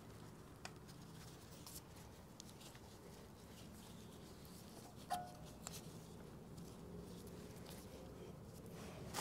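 Quiet room tone: a faint steady low hum with a few scattered faint clicks and taps, and a brief small squeak about five seconds in.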